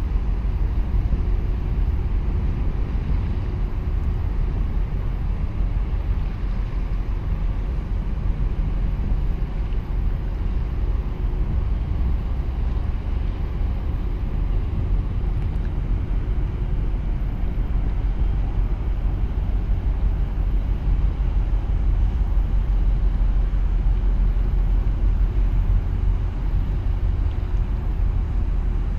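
Low, steady rumble of a large container ship under way close by, mixed with wind buffeting the microphone.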